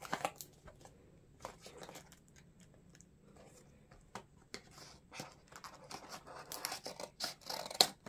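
Scissors cutting and scraping at a small cardboard box, mixed with scratchy handling of the cardboard: a string of short snips and scrapes that grows busier in the second half.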